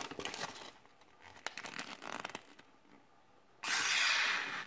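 Light rustling of a paper leaflet, then near the end about a second of loud, even hiss as a Kyocera ceramic kitchen knife slices through the paper, a test of the blade's sharpness.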